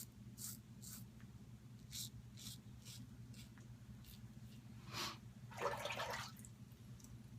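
Double-edge safety razor (Merkur Futur) scraping through lathered stubble in short strokes, about two a second with pauses. About five seconds in comes a louder, longer swishing sound. A steady low hum runs underneath.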